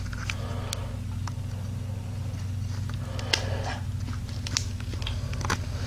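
A steady low hum with a few faint clicks and rustles scattered through it, like small movements close to the microphone.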